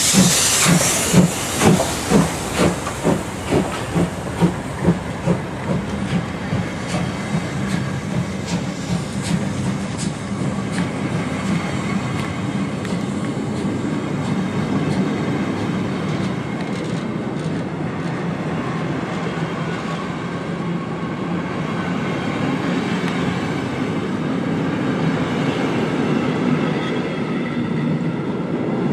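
BR03 steam locomotive working past close by, its exhaust beating sharply about two times a second, the beats fading over the first few seconds as the engine moves off. Then its train of coaches rolls past in a steady rumble, with the wheels clicking over the rail joints.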